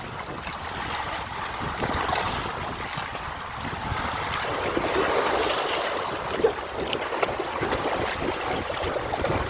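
Sea waves washing onto the shore, swelling about four seconds in, with wind rumbling on the microphone.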